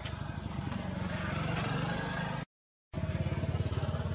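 A motor engine running with a fast pulsing beat. The sound cuts out completely for about half a second midway, then resumes.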